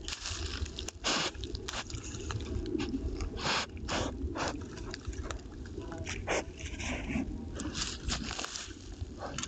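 A wild boar moving about right beside the trail camera: irregular crunches, scrapes and sharp clicks from dry ground and debris, close to the microphone.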